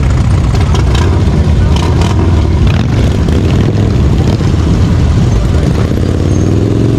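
Motorcycle engines running, a steady low rumble, with one engine's pitch rising and falling near the end.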